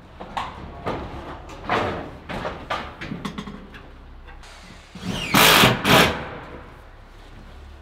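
Work on steel siding panels: a run of knocks and taps, then a loud harsh scrape lasting about a second, five seconds in.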